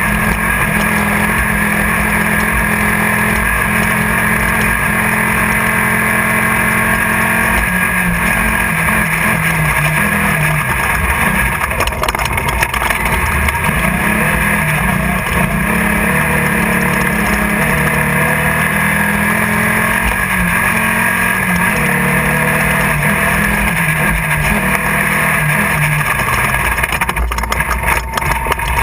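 In-car sound of a Class 1600 off-road race buggy's air-cooled VW engine running hard, its pitch rising and falling with the throttle, over a dense steady din. There are sharp knocks about twelve seconds in and a cluster of them near the end.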